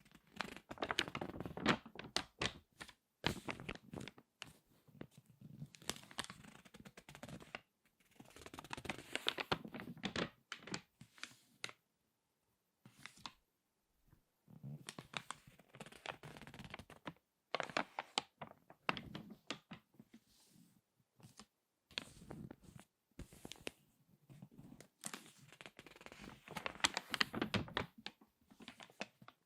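Glossy magazine pages being turned and squeezed by hand, crackling in bursts of a few seconds with short pauses between.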